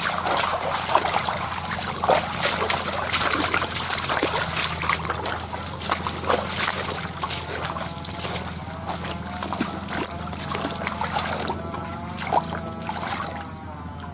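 Feet wading through a shallow stream, water splashing and sloshing with each step, with many small splashes and knocks that thin out in the second half.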